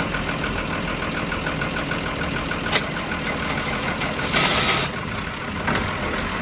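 Inboard marine diesel engine idling just after a cold start: a steady rumble with a fast, regular ticking. A sharp click comes nearly three seconds in, and a brief loud hiss a little after four seconds.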